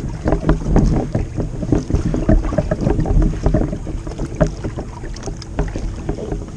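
Water splashing and sloshing around a float tube, with irregular knocks and handling noise as the angler works a hooked fish free of a dock piling, and wind buffeting the microphone.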